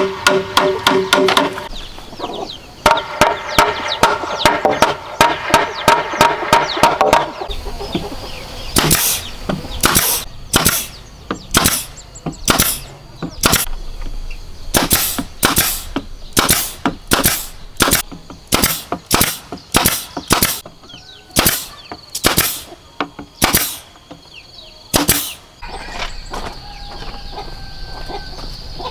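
Hammer striking bamboo poles in quick, ringing taps for the first several seconds, then a pneumatic coil nail gun firing nails into bamboo: about twenty sharp cracks, one or two a second, stopping a few seconds before the end.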